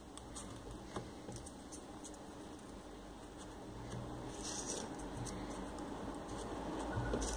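Faint rustling and light clicks of folded paper units being pushed into a 3D origami model, with a brief louder rustle about four and a half seconds in.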